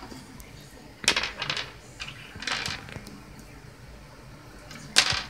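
A plastic slime tub and its lid being handled on a table: a few short scrapes and clicks, with a sharper click near the end.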